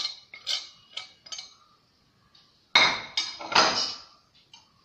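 A steel spoon scraping and tapping spice powder off a plate into an aluminium pressure cooker, about four short metallic clinks. About three seconds in comes a louder clatter of several hard strikes of metal and dishes.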